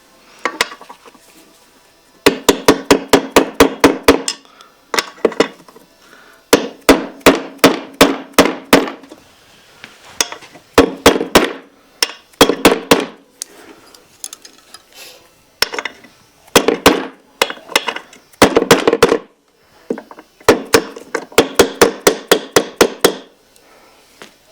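Hammer tapping a bearing into a KTM 950/990 water pump housing: about six runs of quick, evenly spaced strikes, several a second, each run with a metallic ring and short pauses in between.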